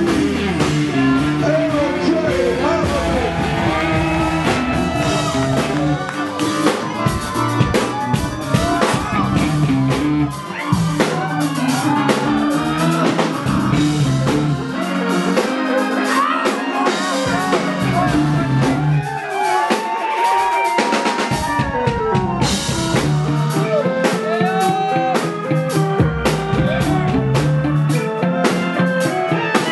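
A live funk band playing: drum kit, electric bass, guitar and keyboards, with a singer's voice over the groove.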